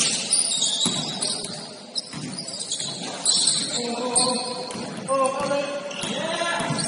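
Basketball game play: a ball bouncing on a hard court floor, mixed with players' voices calling out.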